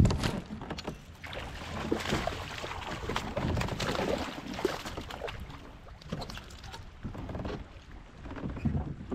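Water splashing as a hooked fish thrashes at the surface beside a kayak, loudest in the first half, with small knocks from gear being handled.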